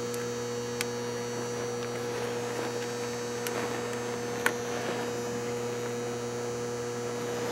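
Steady electrical mains hum, with four faint ticks, the clearest about four and a half seconds in.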